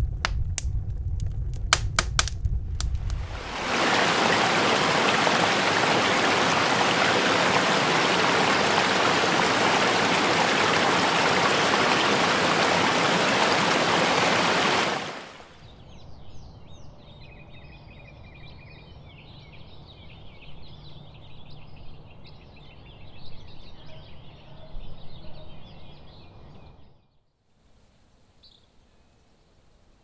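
A wood fire crackling with sharp pops gives way, about three and a half seconds in, to a loud, even rush of flowing water. Around fifteen seconds in this cuts to a quieter open-air ambience with birds chirping, which drops to a faint hush for the last few seconds.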